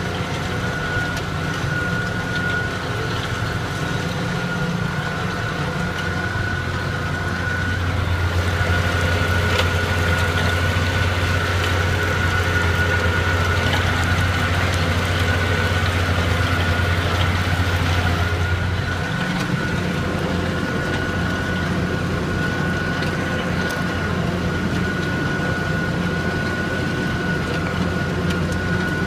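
Tractor diesel engine running steadily under load while pulling a plough, with a steady high whine above the low drone. The drone grows heavier about eight seconds in and shifts to a different note a little before twenty seconds.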